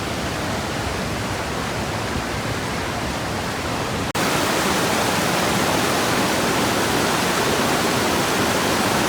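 Waterfall rushing steadily. About four seconds in, the sound breaks off for an instant and comes back louder and brighter.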